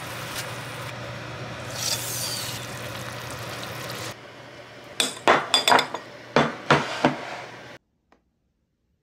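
A steady hum for the first few seconds, then metal tongs clinking sharply against ceramic side-dish bowls, about seven clinks in two seconds, before the sound cuts off suddenly.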